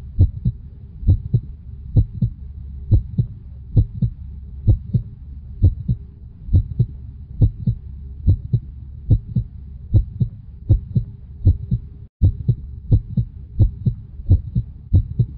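Heartbeat sound effect: paired low thumps, lub-dub, repeating a little faster than once a second over a low hum, with a momentary cut about twelve seconds in.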